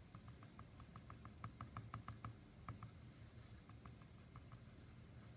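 Faint, quick squeaks of a paintbrush scrubbing acrylic paint onto a small canvas, about five a second for the first two seconds, then a few more scattered up to about halfway.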